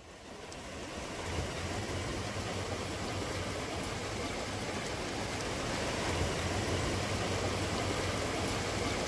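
River water rushing steadily, a continuous even hiss with a low rumble underneath, fading in over the first second or so.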